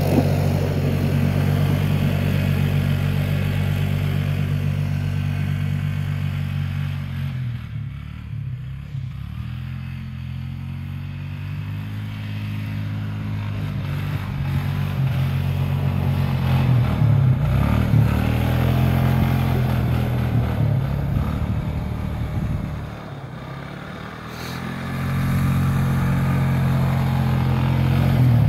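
ATV engine running hard and revving up and down repeatedly as the quad spins donuts and slides on snow. It eases off twice, briefly.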